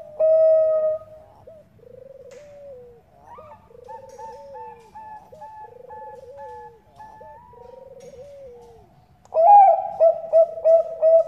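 Zebra dove (Bangkok perkutut) singing its rhythmic cooing song. A loud phrase ends on a long held coo about a second in, then softer repeated coo phrases follow. A loud run of short, quick notes starts again near the end.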